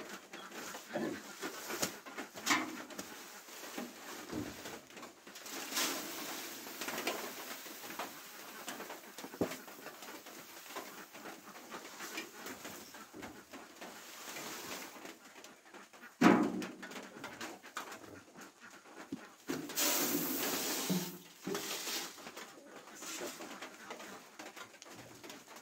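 Handling noises from woven rice sacks and wooden parts around an idle rice mill: irregular rustles and light clicks, a sharp knock about sixteen seconds in, and a longer rustle about twenty seconds in. The mill's diesel engine is not running.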